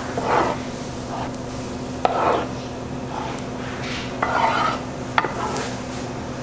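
A ladle is dragged through thick, sticky tteokbokki chili sauce in a steel tray, giving a wet squelching swish about every two seconds, three strokes in all. There are two sharp clicks, one just before the second stroke and one about five seconds in, and a steady low hum runs underneath.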